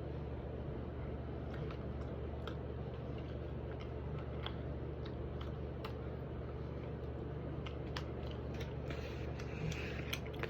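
A person chewing cookies: faint, scattered mouth clicks over a steady low hum.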